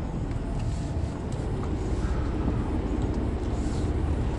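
Tractor-trailer's diesel engine running steadily at low speed as the rig manoeuvres into a parking space.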